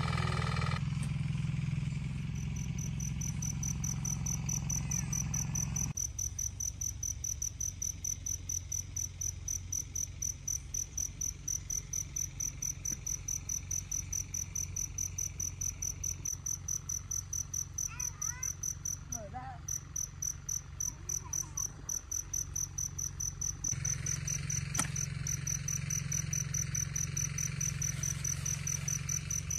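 Insect chirping in a steady, evenly pulsed high-pitched trill that starts a couple of seconds in and breaks off briefly about two-thirds of the way through, over a low steady rumble. A few faint rising chirps sound near the middle.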